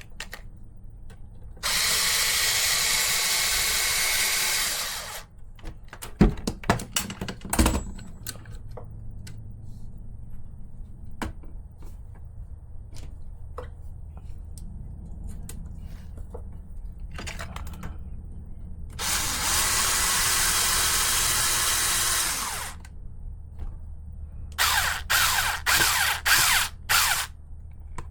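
Small electric screwdriver driving screws into RC car parts. It runs in two steady bursts of about three seconds each, then in several short trigger pulls near the end, with light clicks of small parts being handled in between.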